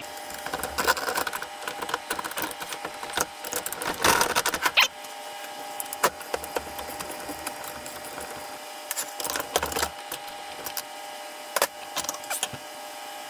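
Scattered metallic clicks and knocks of steel transmission parts being worked loose and handled while an Audi 01E six-speed gearbox is taken apart, busiest in the first few seconds and again near the end. A faint steady hum runs underneath.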